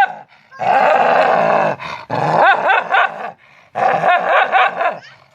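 Dog vocalizing loudly in three bouts of about a second each, with short breaks between. Each bout is a run of quick rising-and-falling yelps.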